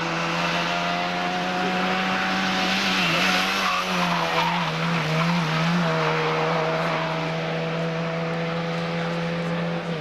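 Race car engine running at steady high revs for the whole stretch, its pitch dipping and wavering briefly around the middle.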